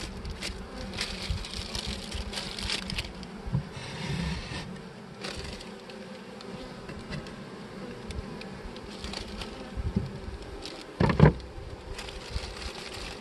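Honey bees buzzing steadily around an open hive, with plastic rustling in the first few seconds and one brief, louder buzz about eleven seconds in.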